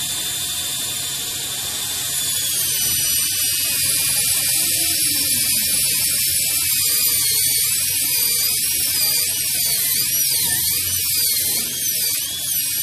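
Dental air motor with a 1:2 speed-increasing contra-angle handpiece and bur running: a steady high air hiss with thin high whining tones that waver up and down in pitch, more so in the second half.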